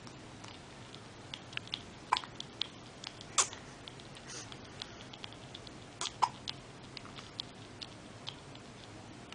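Newborn baby hiccuping: short, sharp hics at irregular intervals, the loudest about two, three and a half, and six seconds in, with fainter clicks between them.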